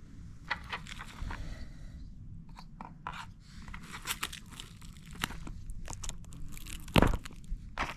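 Shipping packaging being handled and pulled apart by hand: irregular crinkling, tearing and scraping clicks, with one louder knock about seven seconds in.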